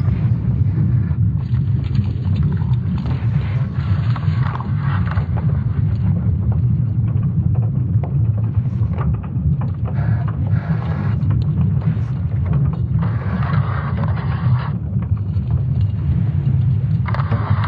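Sonification of Earth's magnetic field and its interaction with a solar storm, made from satellite magnetic data. It is a deep, steady rumble with eerie creaks and crackles. Patches of crackling hiss come and go over it, strongest about 13 seconds in and again near the end.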